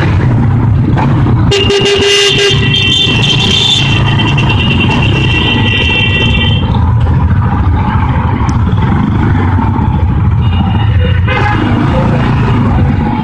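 Vehicle horns honking in slow traffic: one long horn blast of about five seconds starting a second and a half in, and a shorter blast about ten seconds in. Under them runs a steady low rumble of motorcycle engine and wind.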